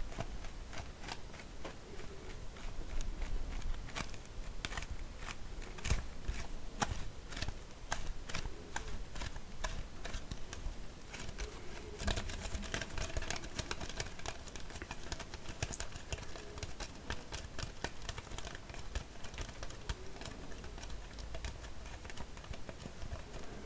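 Empty plastic kvass bottle being tapped and handled: a fast, irregular run of sharp clicks and taps, becoming denser and crinklier about halfway through.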